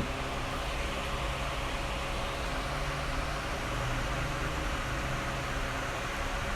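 Steady background hiss with a faint low hum, like a fan or air conditioner running.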